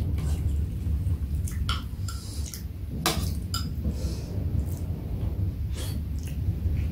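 Chopsticks and a spoon clicking against a metal serving dish and bowls, a few scattered clinks, the sharpest about three seconds in, over a steady low rumble.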